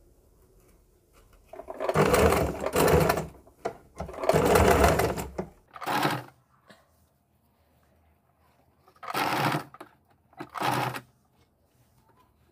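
Electric sewing machine stitching in stop-and-start runs: two longer runs of a second or two near the start, then three short bursts, with pauses between.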